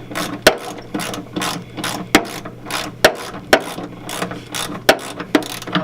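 Hand socket ratchet wrench clicking steadily, about three clicks a second, as a nut or bolt is turned on the car's rear suspension.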